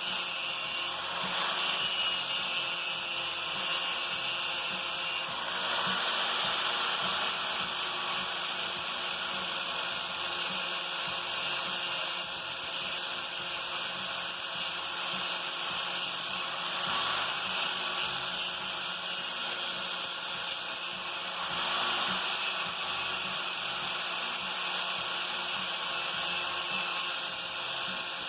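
Hand-held angle grinder running and grinding the edge of a dull steel lawn mower blade: a steady high whine and hiss of the wheel on metal, its tone changing every few seconds as the wheel is worked along the edge.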